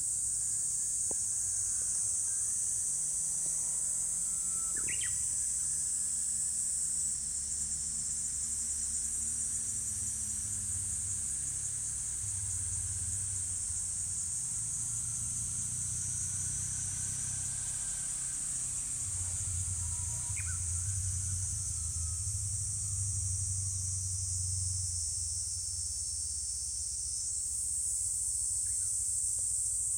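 A chorus of summer insects shrilling steadily without a break. A bird gives a few short rising chirps about five seconds in, around twenty seconds in and near the end, over a low rumble.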